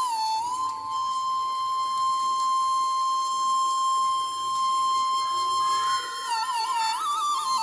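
Flute playing a slow melody: one long held note for about five seconds, then quick wavering ornamented turns near the end.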